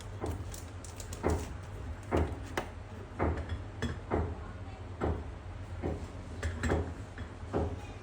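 A run of short dull knocks and clatters, about one every half second to second, over a steady low hum.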